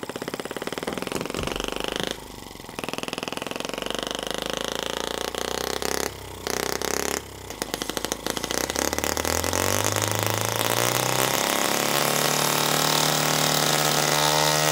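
Miniature single-cylinder four-stroke model engine running fast on a hydrogen–oxygen gas feed, with a few brief stumbles in the first seven seconds. About nine seconds in, its speed climbs sharply and then holds at a high, even buzz.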